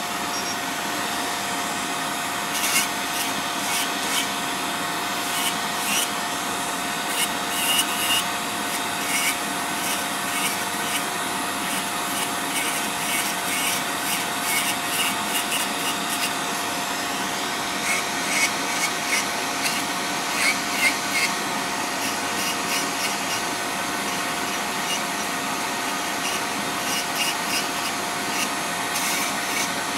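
Electric podiatry nail drill running with a steady whine while its white grinding bit is pressed against thick, fungus-infected toenails, giving irregular scratchy grinding strokes that come and go, busiest in the last third.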